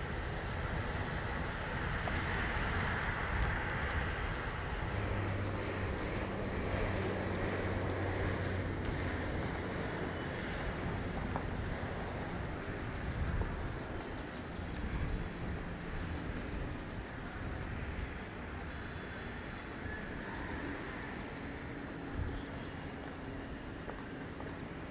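Distant jet noise from an Airbus A350's two Rolls-Royce Trent XWB engines as the airliner climbs after takeoff: a steady rumbling hiss that slowly fades.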